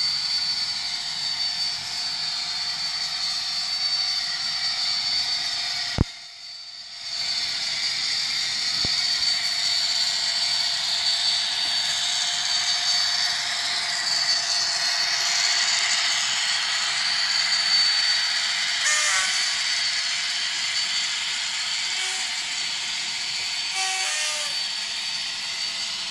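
Bachmann OO gauge Class 57 model locomotive's DCC sound decoder playing a steady diesel engine sound through its small speaker, thin and without bass, over the whine and rattle of the model running on the track. A click and a brief drop in the sound come about six seconds in.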